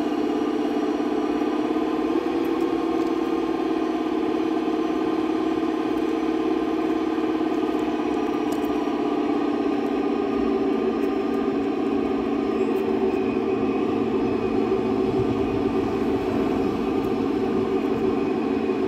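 Golf cart driving slowly at a steady speed, its motor running with an even hum.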